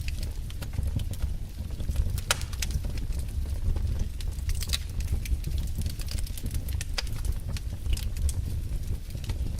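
Wood fire in a fireplace crackling: a steady low rumble of burning, with irregular sharp pops and snaps throughout and a loud snap about two seconds in.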